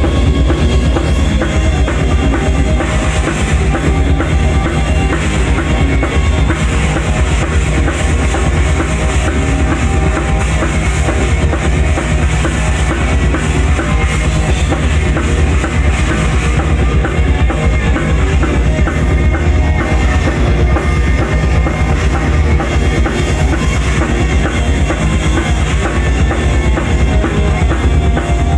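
Live rock band playing at full volume: a drum kit with a busy bass drum, electric guitars and bass guitar.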